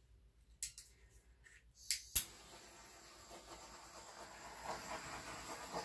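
Handheld torch lit with a sharp click about two seconds in, then its flame hissing steadily and slowly growing louder, used to pop air bubbles in a freshly poured acrylic painting.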